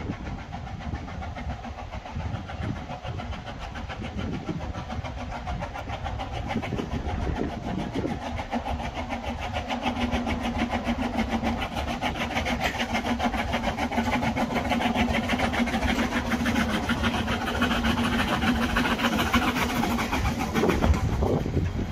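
Narrow-gauge steam locomotive and its coaches drawing into the station, growing louder as the train nears. A steady low hum starts about halfway through and stops near the end.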